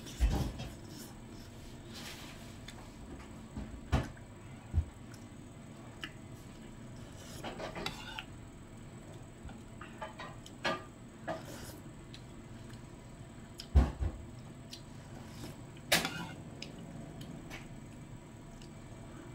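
Close-up eating of glass-noodle soup with tofu: scattered slurps of noodles and broth and a metal spoon against a ceramic bowl, with a few dull low thumps. A sharp, brighter slurp or clink stands out near the end.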